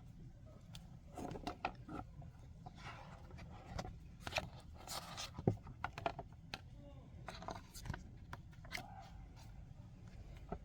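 Faint rustling and scraping with scattered light clicks: the pages of a picture book being handled and turned.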